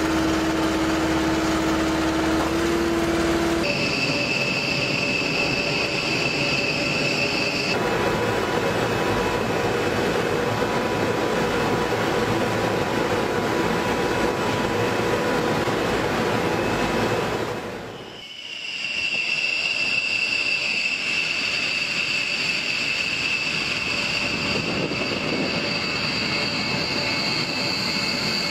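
Jet aircraft turbines running: a steady loud rush with a high steady whine. The sound changes abruptly about four and eight seconds in, dips briefly about two-thirds of the way through, and a new high whine comes in after it.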